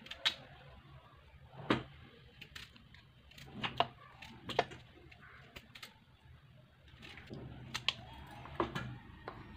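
Raw potato being cut by hand with a knife over a steel bowl of water, the pieces dropping into the water: a series of sharp, irregularly spaced clicks and knocks.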